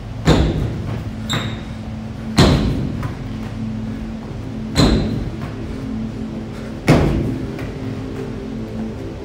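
Feet landing on a wooden plyometric box during repeated box jumps: four sharp thuds about two seconds apart, plus a lighter knock about a second in. Faint background music with a steady tone plays underneath.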